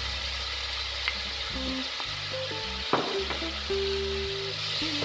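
Vegetables for a sofrito sizzling in hot oil in a pot as chopped green pepper goes in and is stirred with a wooden spoon, with a few sharp knocks of the spoon against the pot.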